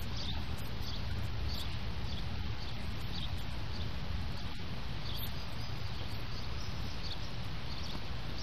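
Outdoor ambience: a steady low rumble with an even hiss, and a faint high chirp repeating about once or twice a second.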